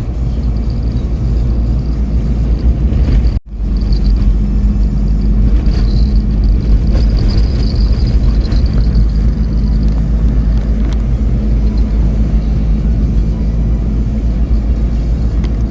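A steady, loud low rumble of a running vehicle engine. It cuts out for an instant about three and a half seconds in, then carries on, with a faint high whine over it for a few seconds.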